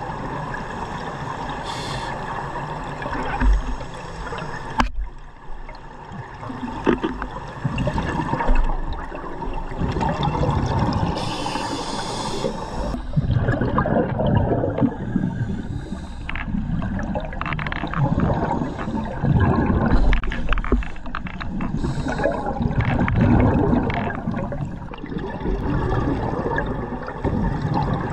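Underwater sound heard through an action camera's housing: scuba breathing, with gurgling rushes of exhaled regulator bubbles every few seconds over the muffled wash of the water.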